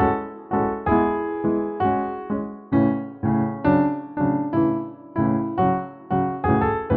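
Keyboard music: chords struck about twice a second, each one fading before the next.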